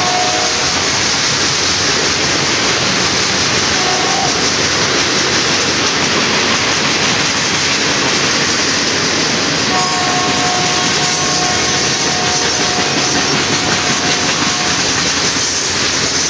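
Union Pacific double-stack container train's freight cars rolling past close by, a loud, steady sound of steel wheels running on the rails. A steady pair of tones is heard for about five seconds starting around ten seconds in.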